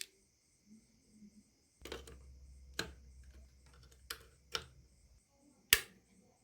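A handful of separate sharp clicks and taps, about six, the loudest near the end, over a faint steady high chirring like insects.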